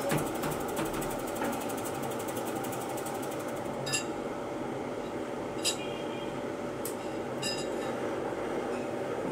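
Steady hum of workshop machinery around an opened shot-blasting tumble machine, with a fast high ticking that stops about four seconds in. After that come four sharp metallic clinks, spaced a second or so apart.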